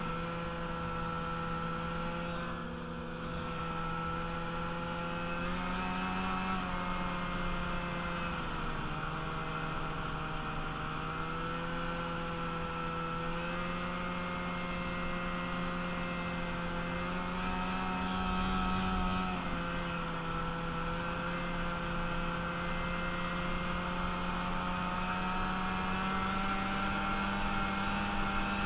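Engine of a rebuilt vehicle running steadily while being ridden. Its drone shifts up and down in pitch a few times as the throttle changes.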